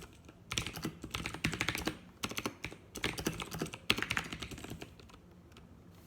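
Typing on a Razer BlackWidow Ultimate 2014 mechanical keyboard with clicky Razer Green switches: fast runs of key clicks in a few bursts, stopping about five seconds in.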